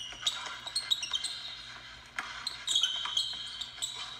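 Basketball dribbled hard on a hardwood gym floor, with the players' sneakers squeaking sharply as they cut and jump.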